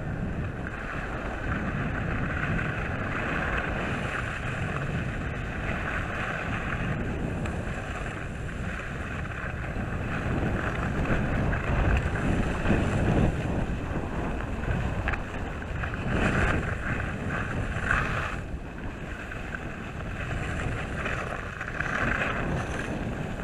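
Skis sliding and scraping over packed snow while wind rushes over a body-worn action camera's microphone: a steady rush that swells several times.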